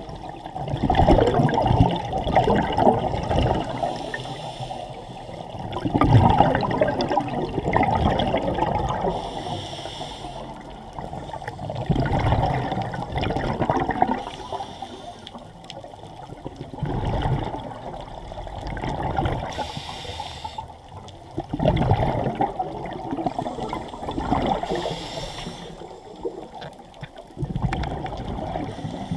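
Scuba diver breathing through a regulator underwater: a short hiss on each inhale, then a long, muffled burble of exhaled bubbles, about once every five seconds.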